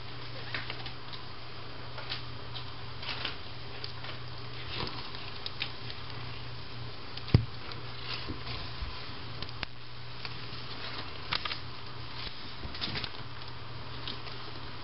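Soft rustles and small clicks from newborn kittens and their mother cat moving and licking on fleece bedding, over a low steady hum. One sharp thump a little past seven seconds in.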